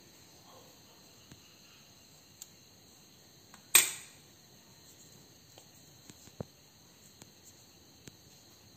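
Metal spoon working melted white chocolate out of a stainless steel bowl: a few faint light ticks and one sharp clink with a short ring about four seconds in.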